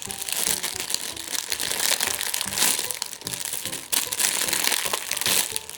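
Irregular crinkling and crackling as a homemade squishy toy is squeezed and handled in the hands.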